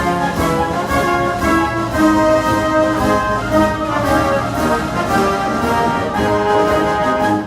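Orchestral music with prominent brass over a steady beat.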